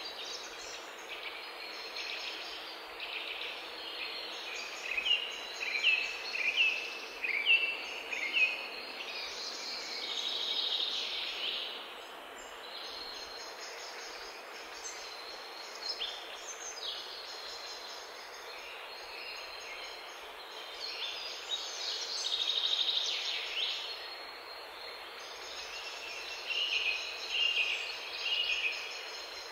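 Background nature sound effect of birds chirping over a steady hiss, with quick runs of short falling chirps a few seconds in and again near the end.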